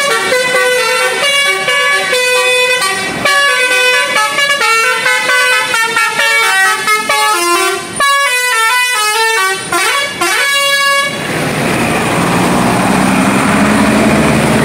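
Multi-tone 'telolet' musical horn on a tour bus playing a quick melody of stepped notes, Basuri-style. About eleven seconds in the horn stops and a steady rushing noise remains.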